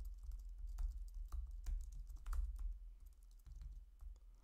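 Typing on a computer keyboard: an irregular run of keystroke clicks, a few a second, over a steady low hum.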